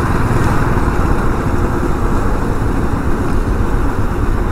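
Royal Enfield motorcycle riding along a road: a steady rush of wind on the action camera's microphone, with the engine and road noise running beneath it.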